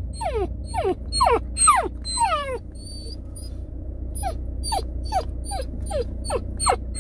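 Samoyed puppy whimpering: a run of short, high whines that each fall in pitch, two or three a second, with a pause of about a second and a half in the middle. A low, steady car-cabin rumble runs underneath.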